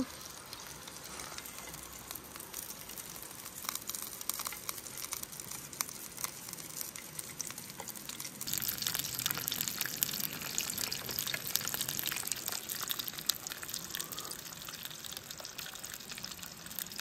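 Whole rainbow trout sizzling in oil in a frying pan on a small camp stove: a steady crackle with fine pops that gets louder and brighter about halfway through.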